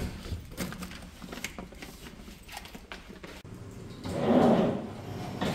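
A run of small mechanical clicks and rattles, then a louder muffled knock or rustle about four seconds in.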